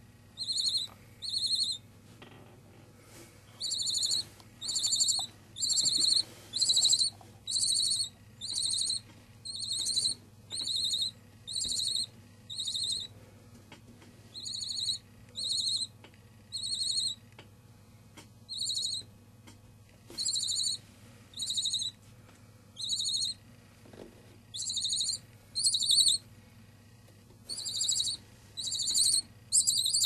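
Barn owl nestlings giving repeated short, high-pitched food-begging calls, about one a second, with a few short pauses.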